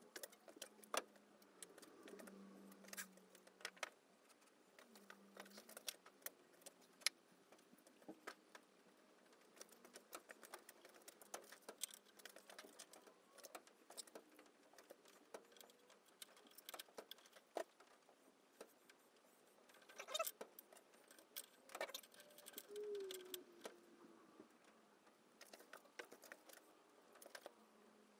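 Faint, scattered clicks and clinks of small metal tools and parts being handled on a workbench, irregular and a little busier about two-thirds of the way through.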